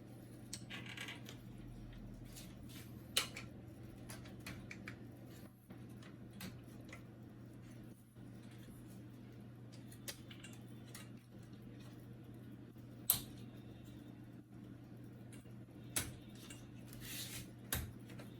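Plastic printer casing and its cover latch being worked by hand: scattered light clicks and small clatters, with a few sharper clicks, the loudest about two-thirds of the way through, over a faint steady low hum.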